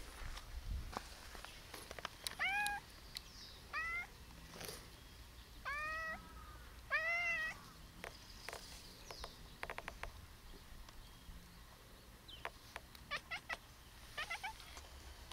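A cat's short meows, four arched calls between about two and eight seconds in, from a cat excited at prey it has spotted, which the owner takes for a bird.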